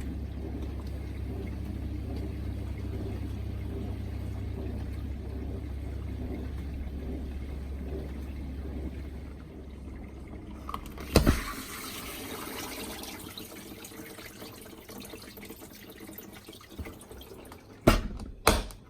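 Bosch dishwasher running: its pump hums steadily under sloshing water, then stops about halfway through. A sharp knock follows, then water hissing and running through the machine, fading, and two sharp clicks near the end.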